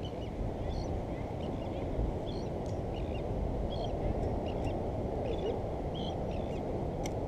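Steady low rushing noise of wind on the microphone, with many short bird calls scattered through it: chirps and squawks. A single sharp click comes near the end.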